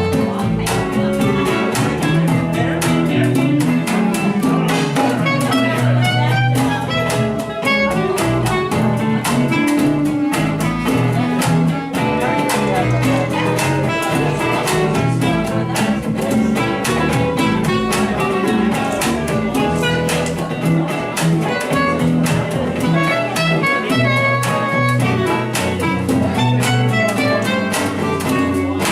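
Instrumental music with a steady beat and no singing.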